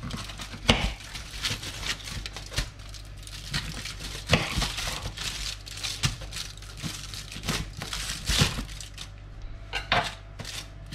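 Aluminium foil crinkling and rustling under the hands while a kitchen knife cuts a garfish into sections on it, with a few sharper knocks as the blade goes through.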